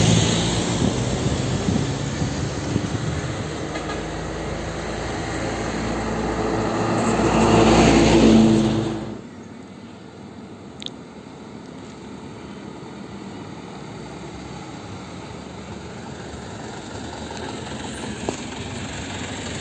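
Trucks driving past close by, diesel engine running and growing louder to a peak about eight seconds in, then cut off suddenly. After that, quieter traffic noise, with another vehicle's engine slowly drawing nearer near the end.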